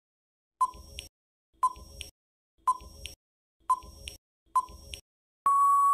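Quiz countdown timer sound effect: five short beeps about a second apart, then a longer steady beep near the end that marks time up.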